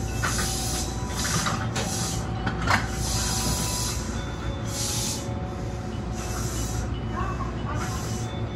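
BEC819 series DENCHA train running, heard from inside at the front: a steady low rumble with irregular bursts of hiss and a sharp click a little under three seconds in.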